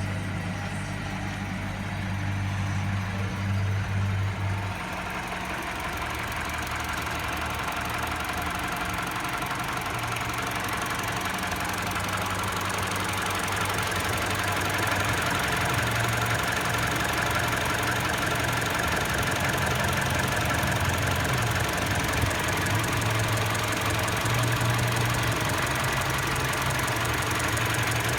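Mini Cooper engine running at idle with a knock, the engine-knocking fault under diagnosis.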